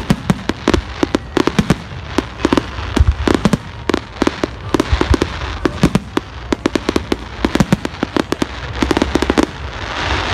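Fireworks display: aerial shells bursting in a rapid barrage, many sharp bangs a second over a low rumble, with a dense crackling hiss near the end.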